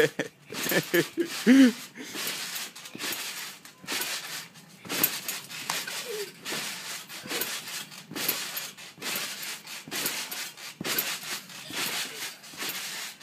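Bouncing on a trampoline: a steady run of short thumps and rubbing noises as the mat is jumped on, with a few short voice sounds near the start.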